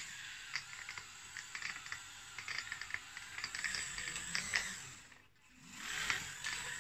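Remote-controlled Siku Control Case IH Quadtrac model driving, its small electric drive gearing and rubber tracks giving a rapid clicking rattle. The sound drops away about five seconds in and picks up again about a second later.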